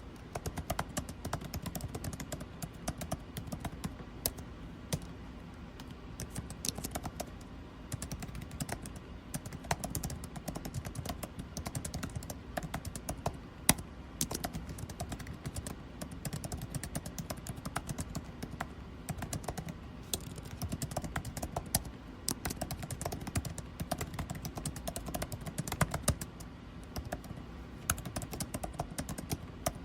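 Steady computer keyboard typing, rapid irregular key clicks with short pauses, over the low steady hum of an air conditioner.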